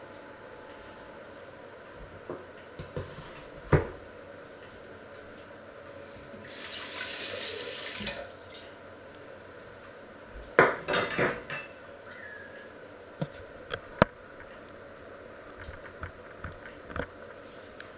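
Kitchen clatter of metal pots, pans and lids being handled: scattered knocks and clinks, one loud knock about four seconds in, and a burst of clattering a little past halfway. A tap runs briefly for about two seconds in between.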